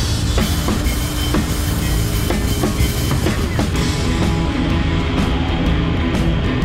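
Background rock music with a steady drum-kit beat; the texture of the music changes about four seconds in.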